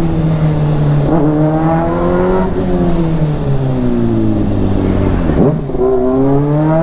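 Honda CBR600RR's 600 cc inline-four, heard through a Yoshimura exhaust while being ridden. The revs climb, drop and climb again about a second in, then fall away for a few seconds as the throttle closes. There is a quick dip about five seconds in, and the revs rise again near the end.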